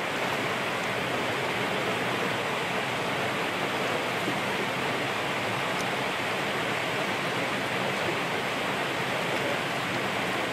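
Steady rush of running water, an even hiss with no rhythm.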